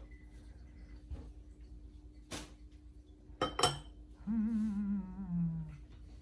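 A click and then two sharp clinks of tableware, followed by a person humming one long note of about a second and a half that drifts slightly lower in pitch.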